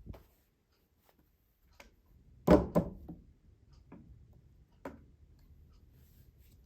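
A handful of short knocks and clicks, as of objects being handled. The loudest are a close pair about two and a half seconds in.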